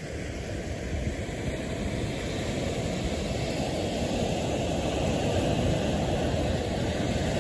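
Ocean surf breaking and washing up the beach: a steady rushing noise that swells gradually louder, with a low rumble of wind on the microphone.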